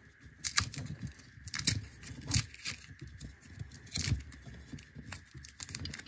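Tape being peeled by hand off a USB cable taped to a wooden stick: a series of irregular crackling rips and handling clicks.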